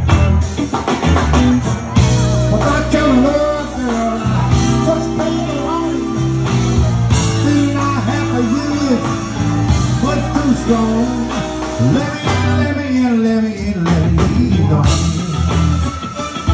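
Live blues band playing: a steady bass line, electric guitar, keyboard and drums, with a man singing into a handheld microphone through most of it.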